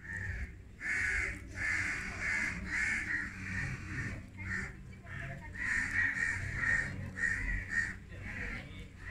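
Crows cawing: a long run of short, repeated caws, about one and a half a second, with brief gaps between them.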